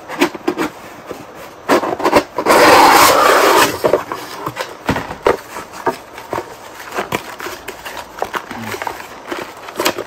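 Unboxing handling: scattered clicks and knocks of plastic parts and packaging being picked up and set down, with a loud rustle of packaging, about a second long, from about two and a half seconds in.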